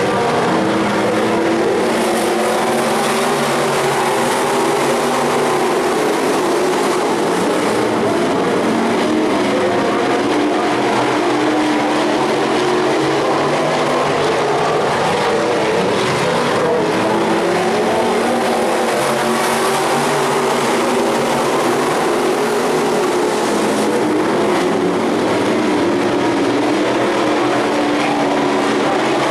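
Several sport modified dirt-track race cars running laps together, their V8 engines rising and falling in pitch as they accelerate and lift around the oval.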